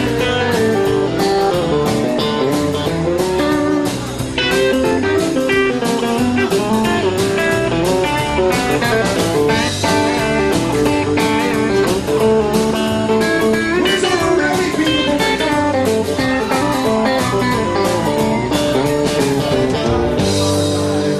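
Live country band playing an instrumental passage with no vocals: electric and acoustic guitars over a steady drum beat.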